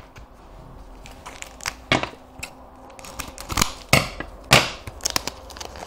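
A foil trading-card pack wrapper crinkling as it is handled and torn open, with several sharp crackles, the loudest between three and a half and four and a half seconds in.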